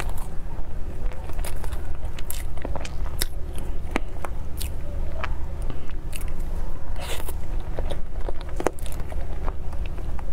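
Close-miked eating sounds: chewing with wet mouth clicks, and a metal spoon scraping and tapping in a plastic dessert cup of tiramisu, over a steady low hum.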